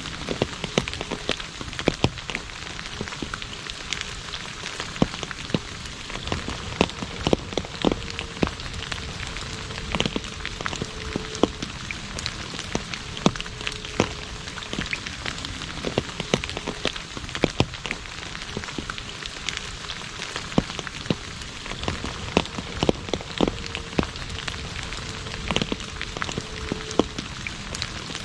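Steady rain falling on an asphalt road: an even hiss dotted with many sharp individual drop splashes.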